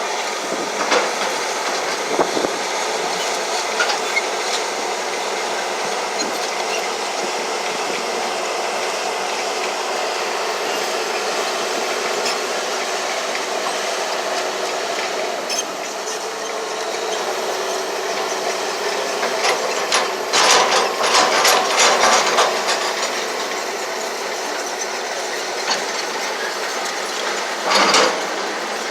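Heavy earthmoving machine running steadily, with rattling metal clanks that come in a cluster about two-thirds of the way through and once more near the end.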